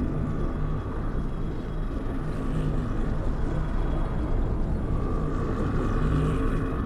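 A deep, steady rumble with a low droning hum held underneath: dark, ominous film sound design without a beat or melody.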